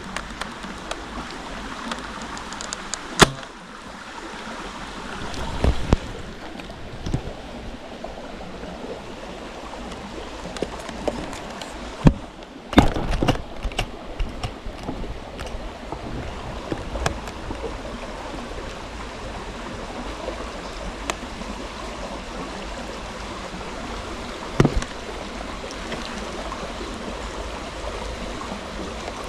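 Water running steadily, with a few sharp knocks and clicks scattered through it, the loudest about 3 seconds and 12 seconds in.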